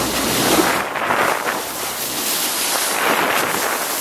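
Wind buffeting the microphone over the rush and splash of water along the bow of a dive boat under way.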